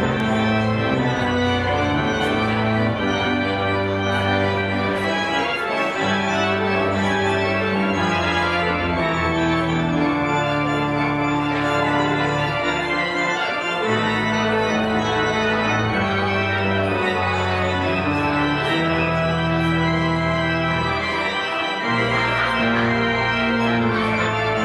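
The church's newly rebuilt organ playing sustained chords over held bass notes, the harmony changing every second or two.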